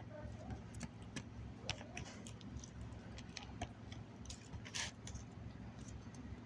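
Eating sounds: scattered small clicks and smacks of chewing and handling food, with a brief rustle a little after the middle, over a faint steady low hum.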